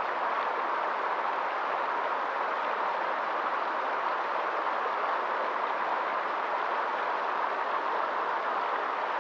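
Small rocky stream running over stones and little cascades: a steady, even water noise.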